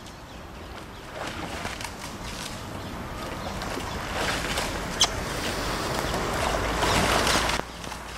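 Rowing double scull approaching: oars working the water and the hull's wash, growing louder as the boat nears, with a few brighter surges and a sharp click about five seconds in. The sound cuts off suddenly near the end.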